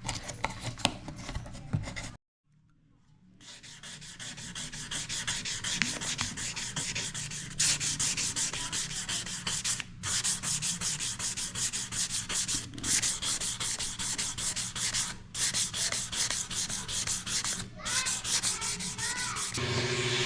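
Hand sanding with abrasive rubbed in quick back-and-forth strokes, pausing briefly every two to three seconds. The sound cuts out for about a second, about two seconds in.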